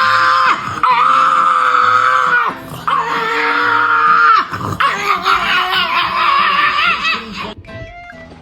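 A dog making long, high, scream-like howls: four held cries with short breaks between them, the last one the longest.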